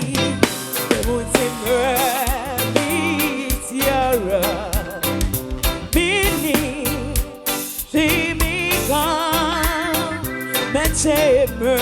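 Gospel band music, with sung vocals carrying a wavering vibrato over a steady drum beat and bass. There is a brief dip in loudness about three-quarters of the way through.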